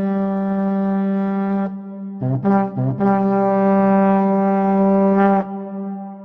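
Brass-like horn music: one low note held long, then a few short blasts on the same pitch about two seconds in, then the note held again and fading away near the end.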